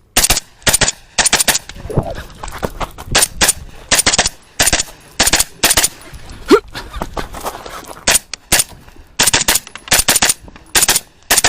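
Rapid gunfire from a 10.5-inch pistol-caliber carbine during a timed competition stage: shots come mostly in quick pairs and short strings, with a gap of about a second around the middle. There is also a brief rising tone about six and a half seconds in.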